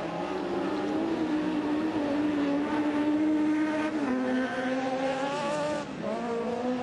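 Autocross race car engine running hard under full throttle, its pitch climbing and then dropping twice at gear changes, about four seconds in and again near the end.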